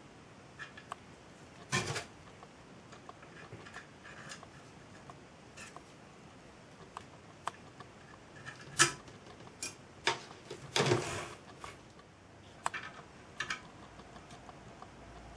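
Scattered light clicks and taps of small metal parts being handled: screws and nuts fitted by hand and with a small screwdriver on a model steam traction engine, with three louder knocks spread through.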